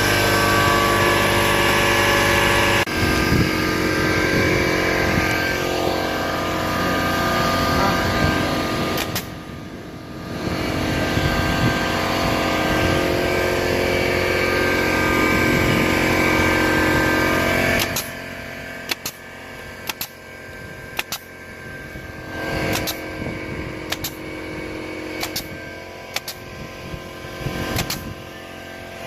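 A motor runs steadily and loudly, easing off briefly near the middle, then stops about two-thirds of the way through. After that come a string of sharp knocks, several close together near the end.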